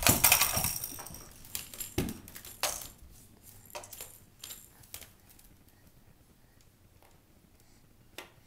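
Wicker basket and hard plastic toy blocks clattering and knocking together as a baby shoves the basket about: a loud burst of rattling at first, then a string of separate knocks that thin out, and one last small knock near the end.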